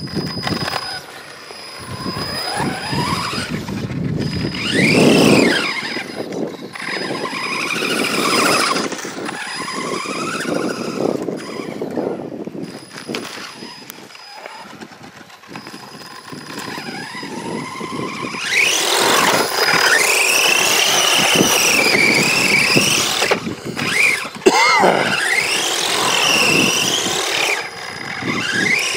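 Brushless electric motor of an RC car whining, its pitch rising and falling again and again as it speeds up and slows down, with a longer loud stretch at high speed in the second half.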